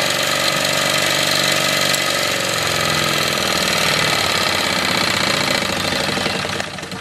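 Wilesco D24 model steam engine running at speed, belt-driving a stepper motor used as a generator: a steady mechanical whirring hum that eases off slightly near the end.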